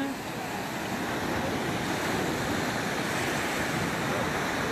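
Small sea waves breaking and washing up over a sandy beach: a steady rush of surf.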